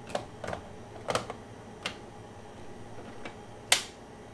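Plastic outer bowl of a Ninja Creami ice cream maker being fitted onto the machine and twisted into place: a series of about six sharp plastic clicks and knocks, the loudest near the end.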